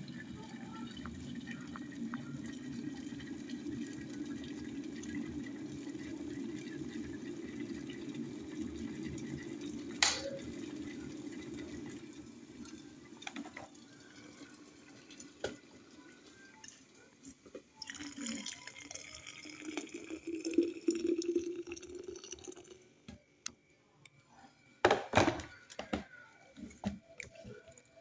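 Stainless steel electric kettle boiling water with green tea leaves in it: a steady low rumble, a sharp click about ten seconds in, after which the rumble dies away. A few metal knocks and clinks near the end.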